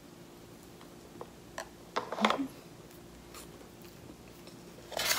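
A person biting and chewing a piece of cake with a crumbly topping, with a few short crunchy sounds about two seconds in and a brief rustling swell near the end.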